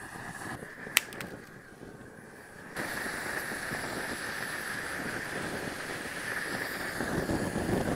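Propane torch burning with a steady hiss and a high tone running through it, its flame played over a wooden board to char it. There is a sharp click about a second in, and the flame noise gets louder about three seconds in.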